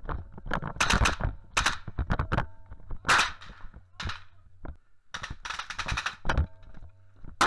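Rifle gunfire: single shots and short rapid bursts, with the quickest run about two-thirds of the way through.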